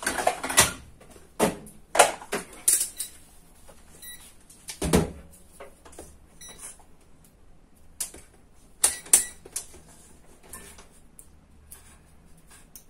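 Clicks and knocks of a digital multimeter and its test leads being handled and set down on a TV's sheet-metal backlight panel, with a low thump about five seconds in. The meter gives a short beep about four seconds in and another a couple of seconds later.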